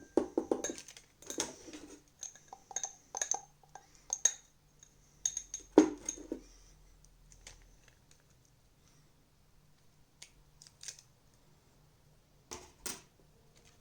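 Small hard parts of a disassembled TV remote clicking and clinking as they are handled and cleaned. The clicks come in quick clusters, with one louder knock about six seconds in, then only a few scattered clicks.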